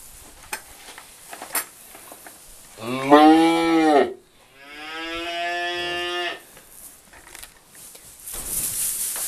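Two long, low calls from a farm animal: the first rises and falls in pitch, the second is held steadier and a little longer.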